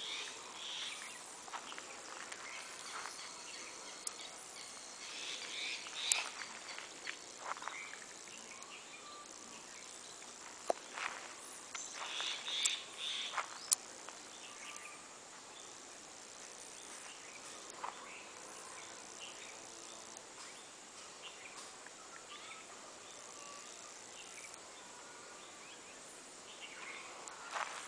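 Outdoor ambience with a steady high chirring of insects, broken by scattered short clicks and rustles, a few louder ones in the middle.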